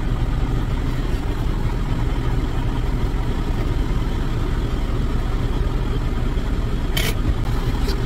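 Semi truck's diesel engine idling steadily, heard from inside the cab, with one short sharp click about seven seconds in.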